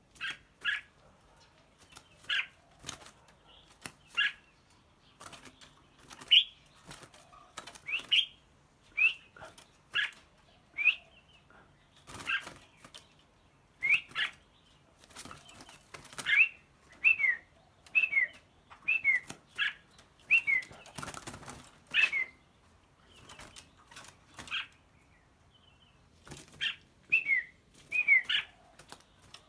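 Caged songbirds calling in short, sharp whistled notes, many sliding downward, one or two a second, mixed with sharp clicks and a brief flutter of wings about two-thirds of the way through.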